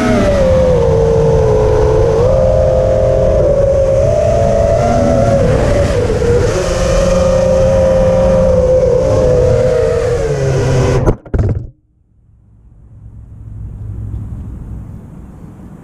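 FPV quadcopter's motors and propellers whining, the pitch wavering up and down with throttle. About eleven seconds in the whine stops abruptly with a couple of knocks, leaving a low rumble that swells and fades.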